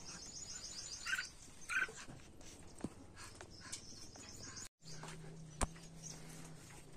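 Small songbirds chirping: a fast, high twittering run of short notes, two short louder calls about one and two seconds in, and another high twitter just before the middle. After a brief dropout, a low steady hum and a single sharp click.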